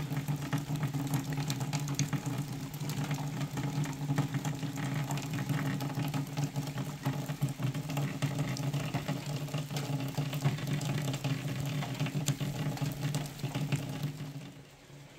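Rain falling steadily, a dense patter of drops, with a steady low hum underneath; it fades away near the end.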